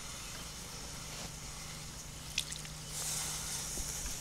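Water hissing and sizzling on the hot concrete-block firebox of a homemade smoker, poured on to cool the smoker down. A few small pops come about two and a half seconds in, and the hiss grows louder about three seconds in.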